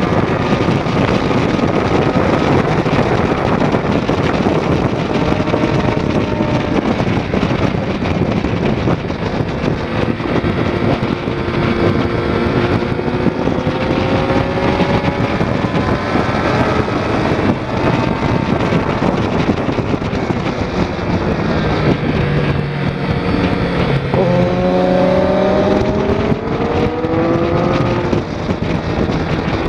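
2006 Triumph Daytona 675's three-cylinder engine at racing speed, its pitch climbing hard through the revs several times and dropping off between, with heavy wind rush on the bike-mounted microphone.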